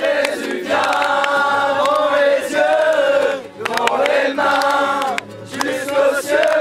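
A group of young voices singing a Christian worship song together, in long held phrases with short breaks between them.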